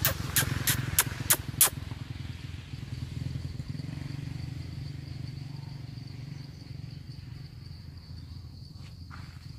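A low, steady engine rumble with a fine pulsing texture, easing off a little after about six seconds. Over it is a thin, steady high insect drone, and a run of about six sharp clicks in the first two seconds.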